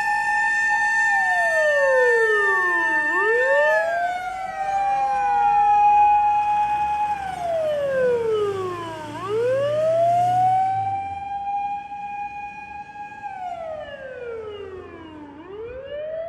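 Japanese fire engine's mechanical motor siren winding up to a steady wail, holding it, then winding down, in about three cycles some six seconds apart. Another falling siren overlaps it in the first few seconds, and a low engine rumble comes through in the middle. It is fainter over the last five seconds.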